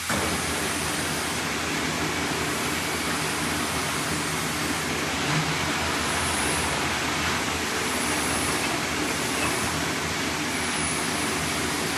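A machine running steadily: an even mechanical noise with a low hum under it, and one small knock about five seconds in.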